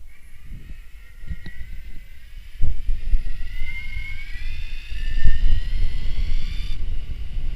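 Electric mountain bike motor whining and rising steadily in pitch as the bike speeds up under power, then cutting off suddenly near the end. Under it runs a loud, uneven low rumble of wind buffeting the microphone, with a few knocks from the ride.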